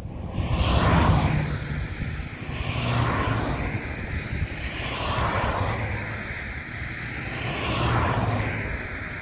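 Cars driving past one after another on an asphalt road: tyre and engine noise swells and fades four times, the first pass, about a second in, the loudest.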